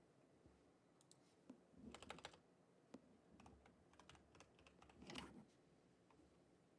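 Faint typing on a computer keyboard: scattered clusters of light key clicks, the clearest about two seconds in and near five seconds, over otherwise near-silent room tone.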